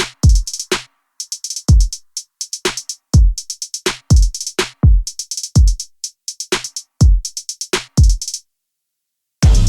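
Background electronic music with a drum-machine beat: deep kicks that drop in pitch under rapid hi-hat ticks. The beat cuts off a little after eight seconds, and after about a second of silence a fuller passage with steady bass begins near the end.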